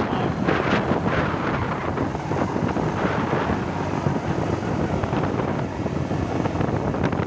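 Steady vehicle and road noise, with wind buffeting the microphone in a few gusts during the first few seconds.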